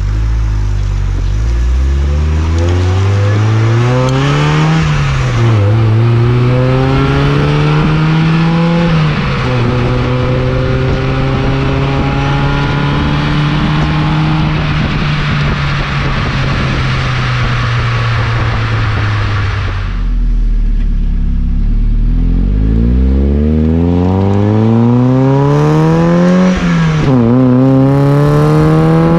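Mazda Miata's four-cylinder engine heard at the tailpipe while driving, first through the stock exhaust: revs rising through the gears with shifts at about 5 and 9 seconds, then a steady cruise. About twenty seconds in it switches to the aftermarket cat-back performance exhaust, starting from a low tone and revving up through the gears with a shift near the end.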